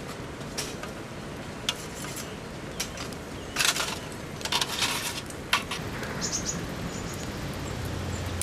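Steady rain, with scattered sharp clicks and crackles and a louder cluster of them around the middle. A low hum comes in near the end.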